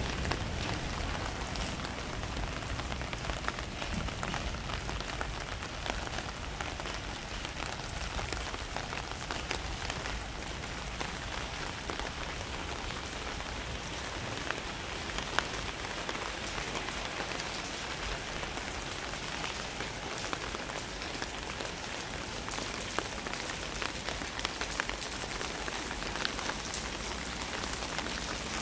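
Drizzling rain falling on surfaces: a steady hiss scattered with the ticks of single drops, a few of them louder, one about halfway through.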